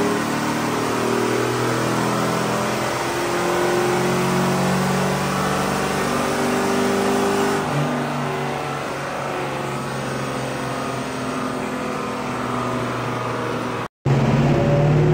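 The 2012 GMC Sierra 1500's 5.3-litre V8, fitted with a BTR Truck Norris cam and with its DOD/AFM and VVT deleted, running and revving, its pitch rising and falling. The sound drops out for an instant near the end and then resumes.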